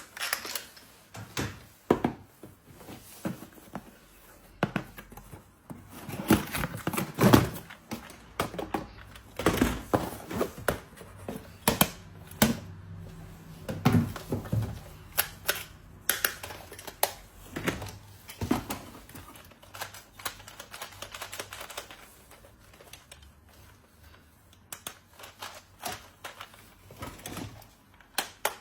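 Irregular clicks, taps and knocks of small hard objects being handled, typical of plastic toy parts and packaging being unboxed and fitted together, some strokes in quick clusters.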